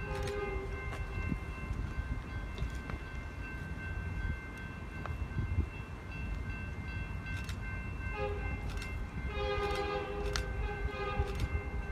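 Distant freight locomotive air horn approaching, sounding a chord in separate blasts: one ending just after the start, a brief one about a second in, then a short blast and a longer one from about eight seconds in. A low rumble and steady high ringing tones lie under it.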